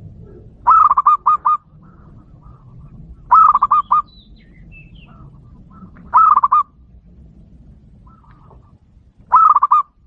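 Zebra dove (perkutut) singing its lure song: four phrases about three seconds apart, each a quick run of several short cooing notes. Faint chirps of other birds come between the phrases.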